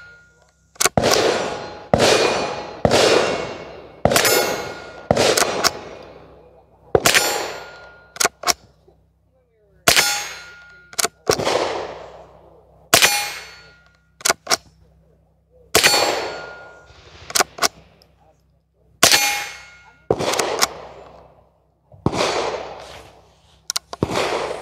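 Rossi Gallery pump-action .22 LR rifle firing a string of shots, roughly one a second with short pauses, each shot followed by the ring of a struck steel target. Fainter clacks of the pump action come between shots.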